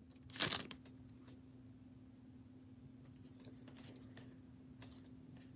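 Trading-card booster pack wrapper crinkling sharply as it is opened about half a second in, followed by faint rustles and light clicks of cards being slid out and handled, over a steady low hum.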